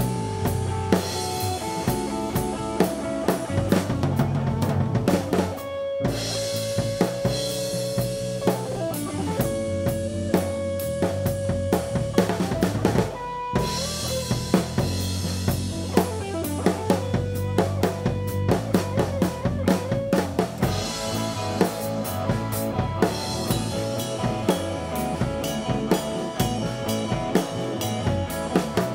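Live rock band playing: electric guitar lines over bass guitar and a drum kit with kick, snare and rimshots, the whole band stopping for an instant twice.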